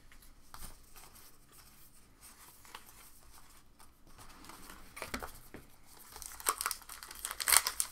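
Trading card pack wrappers crinkling and cards being handled. It is faint for the first few seconds, then crisp crinkles and rustles come more often and get louder over the second half.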